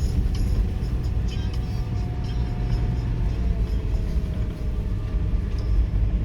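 Steady low rumble of a car being driven, engine and tyre noise, with a faint tone that slowly drops in pitch midway.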